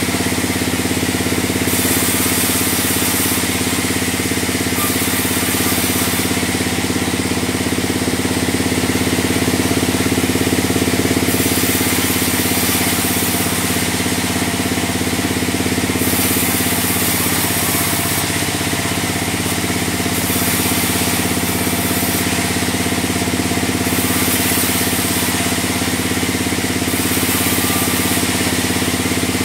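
Large log bandsaw mill running steadily, its drive giving a constant machine hum, with a high hiss that comes and goes every second or two.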